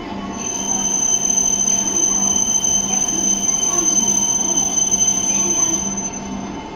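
A shinkansen train moving along the platform, its noise swelling about half a second in and easing off near the end, with a steady high-pitched squeal held throughout.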